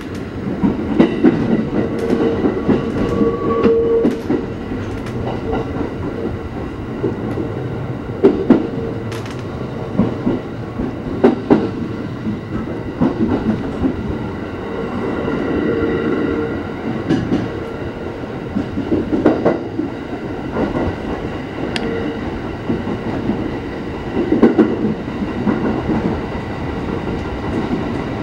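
Cabin running noise of a JR East Hachikō Line electric train between stations: a steady rumble of wheels on the rails with a steady hum, and scattered sharp clicks and knocks as the wheels cross rail joints.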